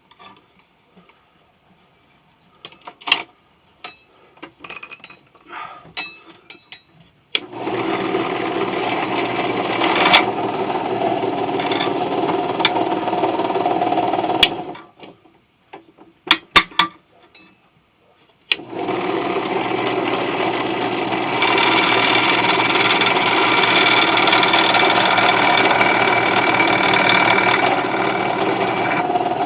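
Electric power tool working a brass piece, running steadily in two long spells, from about 7 seconds in to about 14 seconds and again from about 18 seconds to the end. Sharp clicks and knocks of metal being handled come before and between the runs.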